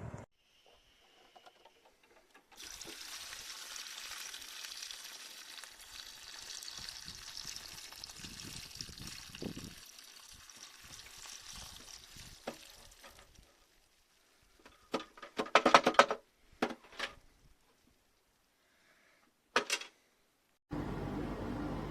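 A steady hiss like running or pouring water for about ten seconds, then a few sharp knocks and clatters, and near the end a steady fan hum starts up.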